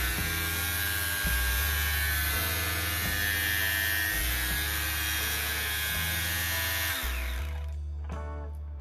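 Cordless 18V random orbital sander running free in the hand off a 3D-printed battery pack, a steady high whir that is switched off about seven seconds in and winds down. Background music with a bass line plays over it.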